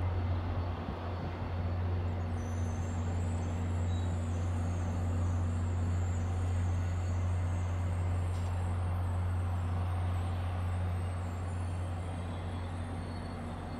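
MBTA diesel commuter train pulling away, its engine giving a steady low drone, with a faint high-pitched wavering whine from about two seconds in.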